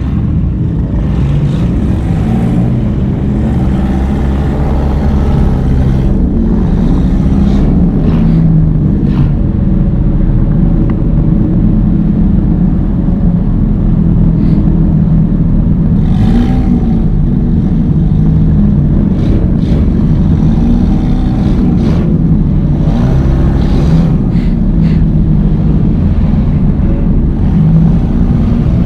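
Race car engine running loud, revving up and down repeatedly as the enduro race gets under way, with occasional sharp knocks.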